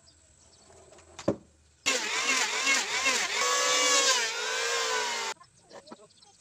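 Electric hand planer running and shaving an ulin (Borneo ironwood) slab, its motor whine dipping and recovering in pitch as the blade bites, for about three and a half seconds before it cuts off suddenly. A single knock comes about half a second before it starts.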